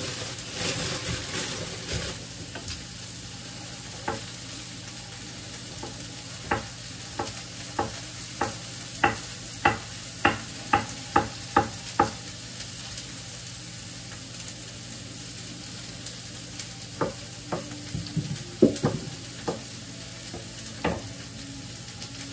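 A kitchen knife chopping mushrooms on a wooden cutting board: a run of sharp taps about two a second, a pause, then a second, looser run. Under it runs the steady sizzle of food frying in a pan on the hob, and a plastic bag rustles at the start.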